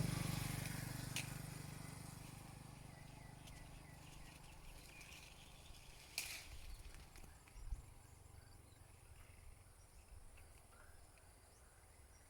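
A vehicle engine fading away over the first two or three seconds, then quiet roadside outdoor ambience with a few short rustles and snaps.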